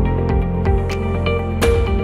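Background music: sustained tones over a steady low beat, with a sharp hit about one and a half seconds in.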